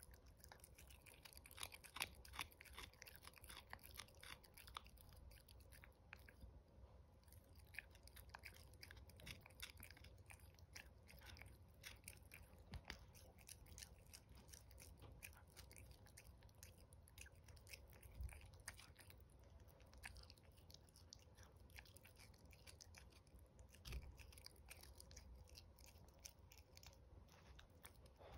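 Chihuahua puppy gnawing on a hand-held chew stick: faint, irregular crunching and clicking of its teeth on the chew.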